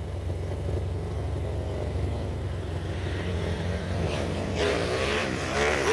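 Kawasaki KLX 150L engine, built with an XRM 125 four-valve head and a 70 mm forged piston, running with a steady low rumble; about three-quarters of the way in its pitch rises as it revs up.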